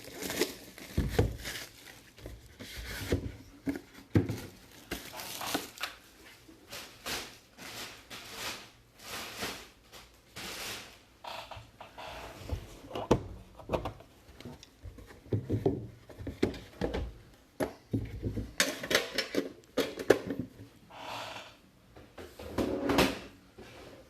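Cardboard trading-card boxes being handled and opened: irregular knocks, thuds and rustling of cardboard and wrapping.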